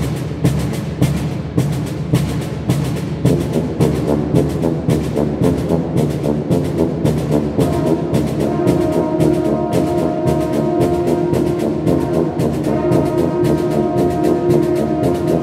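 Concert wind band playing: a quick, even percussion beat under saxophones and brass, with sustained brass chords coming in about eight seconds in.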